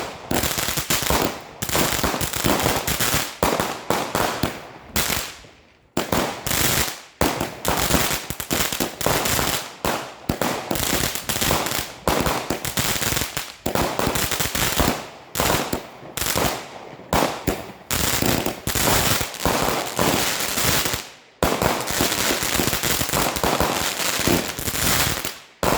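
Weco Dreamcatcher firework compound firing: a dense, nearly unbroken run of shots and crackling bangs, with a few brief pauses between sections, the last of them near the end.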